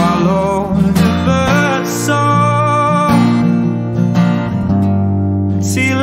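Song with strummed acoustic guitar and a man singing long, wavering held notes.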